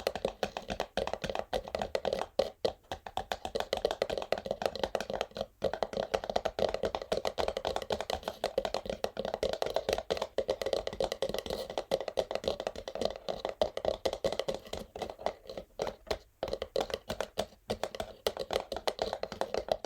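Natural fingernails tapping rapidly and unevenly on an empty textured cardboard box, a dense run of quick hollow taps.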